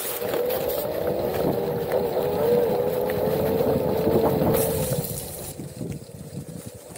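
Onewheel's electric hub motor whining at a steady, slightly wavering pitch over the rumble of its tyre on a rough trail; the whine fades out about five seconds in, leaving the tyre rumble.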